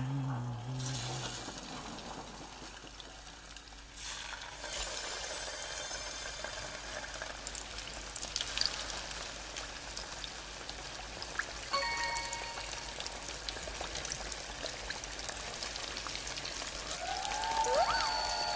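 Battered angelica tree shoots deep-frying in hot oil in a wide cast-iron cauldron pan: a steady crackling sizzle that grows louder about four seconds in. A few short chime tones about twelve seconds in and a warbling sound effect near the end.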